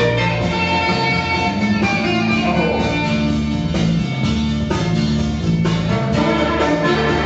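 Loud music with a steady bass line, played for breakdancing.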